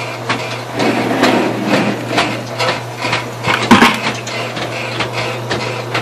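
Antique Automatic Electric Washer Co. washing machine running: its electric motor hums steadily while the drive mechanism knocks in a steady rhythm, about two to three knocks a second, with one louder clatter a little past the middle.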